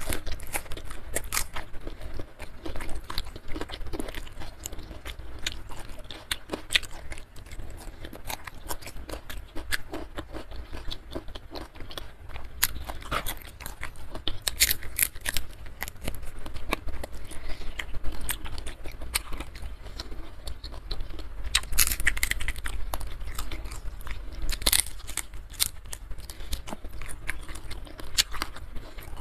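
Close-up mouth sounds of eating by hand: wet chewing with many sharp crunchy clicks from raw vegetables and crispy fried salted fish. The crunching thickens in two clusters, about halfway through and again past two thirds of the way.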